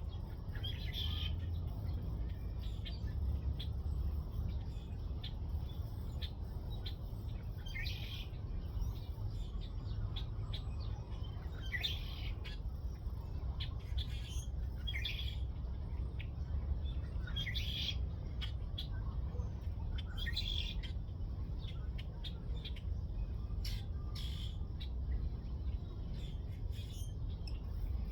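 Birds chirping in short calls every second or two, over a steady low rumble.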